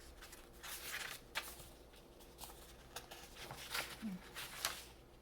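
Soft paper rustling and crinkling as the pages of a handmade paper junk journal are turned and its tucked cards and cutouts handled, a series of short quiet rustles.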